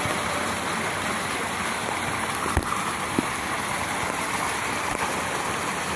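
Steady rushing of running water from a water slide's flow, with one short knock a little under halfway through.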